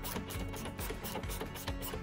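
Background music with rapid clicking from a ratchet wrench tightening the gearbox mounting nuts.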